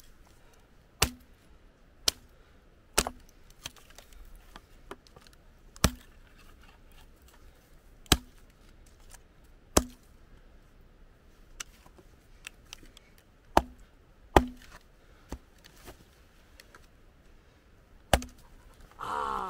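Hatchet chopping a branch on a wooden chopping block: about a dozen sharp, separate chops at an uneven pace, roughly one every one to two seconds, each with a short dull thud.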